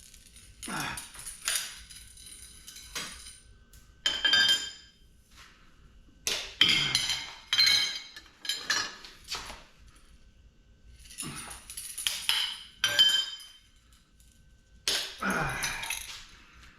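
Aluminum crutch tubing being pulled apart and handled: irregular metallic clanks and clinks, several leaving a short ring.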